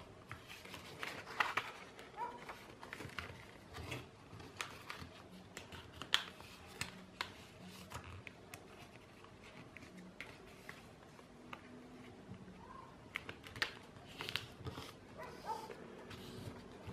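A sheet of A4 paper being folded and creased by hand: irregular rustling with sharp crackles as fingers press and slide along the folds.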